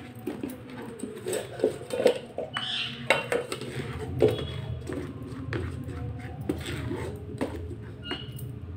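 A wooden spatula scrapes and presses thick ground paste through a steel bowl strainer. It makes irregular scrapes and knocks against the metal.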